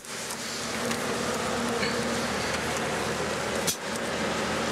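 A steady low buzzing hum, with a short break about four seconds in.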